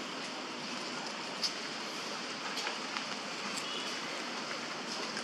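Steady outdoor background hiss with scattered small ticks and rustles, like light movement over dry leaves and seeds.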